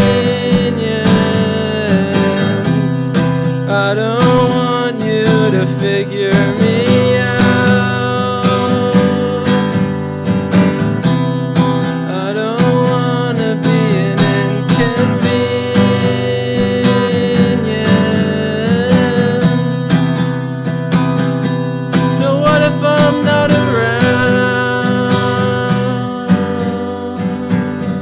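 A man singing to his own strummed acoustic guitar.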